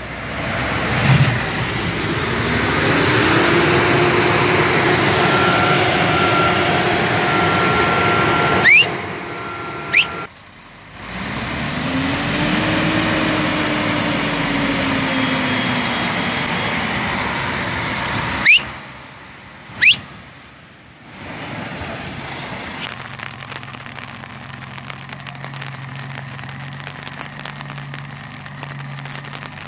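Heavy truck's diesel engine straining under load as it pulls through deep mud, its pitch rising and holding, then rising and falling again in a second clip. Brief sharp squeals sound between the clips, and near the end a steadier low hum takes over.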